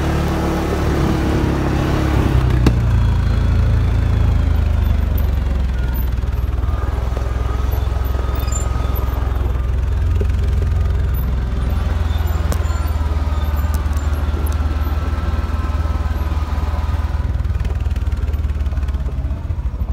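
ATV engine running steadily under way, a low drone with some wind and rattle over it; near the end it slows to idle.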